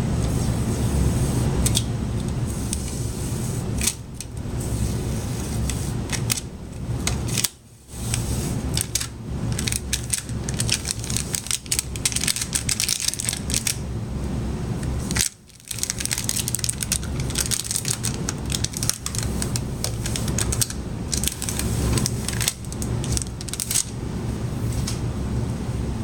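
Packing tape and plastic being pulled and peeled off a new dehumidifier: irregular rapid crackling and clicking over a steady low rumble. The sound drops out briefly twice.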